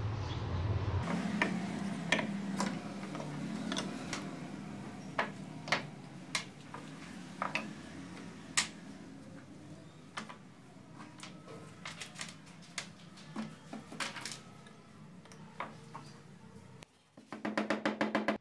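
Carved wooden model-airplane parts being handled and set down on a wooden workbench, giving scattered light knocks and clicks, over a low hum that is strongest for the first second. Near the end comes a quick run of rapid light hammer taps on a wooden wing piece.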